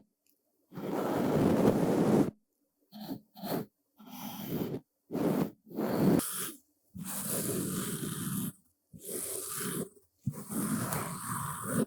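Soft brushes swept in slow, separate strokes, about nine of them, each from a fraction of a second to about a second and a half long, with silent gaps between.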